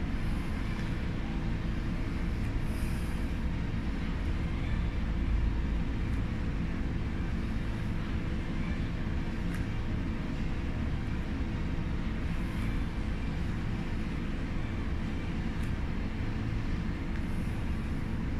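Steady low rumble with a constant low hum underneath, unchanging throughout, with a few faint ticks.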